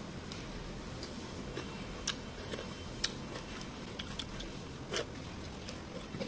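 Scattered light clicks and taps, about half a dozen at irregular intervals, over a steady low background hum.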